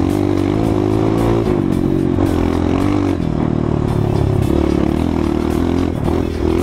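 Honda CRF 230 dirt bike's single-cylinder four-stroke engine running under way, its pitch rising and falling as the throttle is opened and eased.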